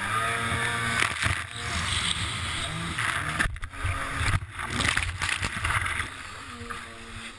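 Racing jet ski engine running at speed, with water spray and wind hissing over a helmet-mounted camera. About halfway through, the sound drops out sharply twice as the ski tips over in a crash.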